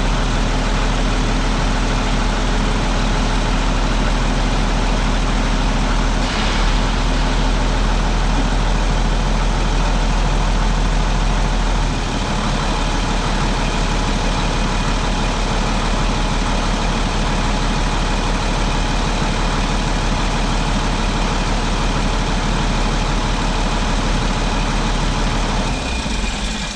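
Large engine idling steadily with a deep low hum; the sound shifts slightly about six seconds in and drops a little in level about halfway through.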